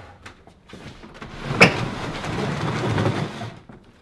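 A heavy wooden furniture piece, part of an upcycled couch, knocks once and is then moved over a wooden plank floor, giving about two seconds of rough rolling and scraping noise that stops suddenly.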